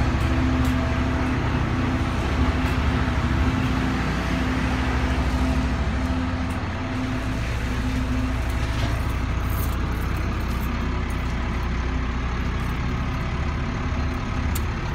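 Engine of heavy construction machinery running steadily with a low hum, dipping slightly in level about halfway through.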